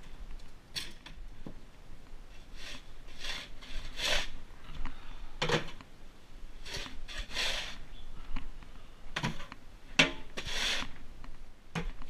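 Plastic manure fork scraping and raking over a horse stall's floor and bedding in repeated short strokes, with a sharper knock about ten seconds in.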